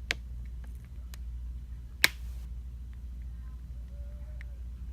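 Two sharp clicks of small plastic phone parts being handled, one right at the start and a louder one about two seconds in, with a few faint ticks between, as the SIM tray of a ZTE ZMAX Pro is worked out. A steady low hum sits underneath.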